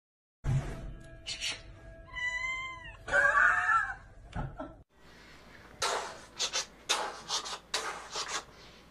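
A cat meowing: a high meow that rises and falls about two seconds in, followed at once by a longer, lower, wavering meow. Later comes a run of short hissy bursts, about two a second.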